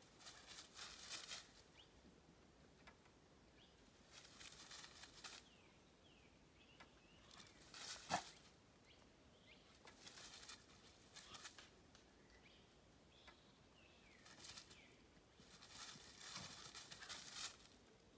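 Dry leaf litter rustling and crackling in short bouts as a dhole steps and noses through it, with one sharp crack of a leaf or twig about eight seconds in.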